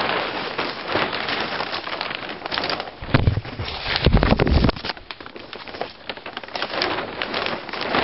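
Plastic sheeting crinkling and rustling right at the microphone, with heavier handling bumps about three to four and a half seconds in.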